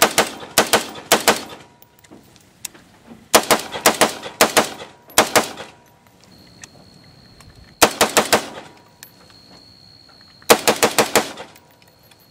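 Four quick strings of rifle shots from a 10.5-inch AR-15 in .223, several shots each, a fraction of a second apart, with pauses of about two seconds between strings. The early strings are fired without the Noveske KX3 flash hider and the later strings with it, as a sound comparison.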